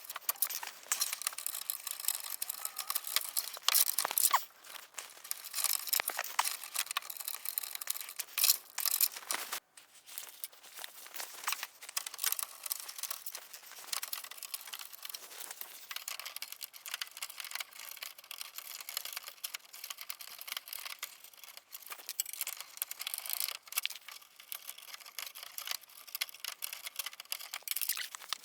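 Handling noise: a continuous crackling rustle and scraping with many small clicks, louder around four seconds and nine seconds in.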